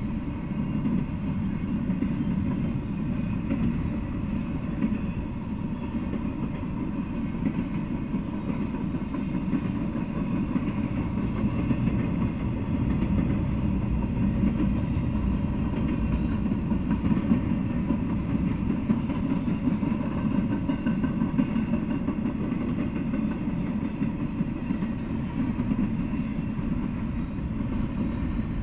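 Intermodal freight train's well cars rolling past on the rails, a steady low rumble that holds at one level throughout.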